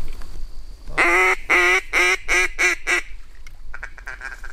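Mallard-style quacking: a loud run of about six nasal quacks, each shorter and quicker than the last, then a fainter run of short quacks near the end.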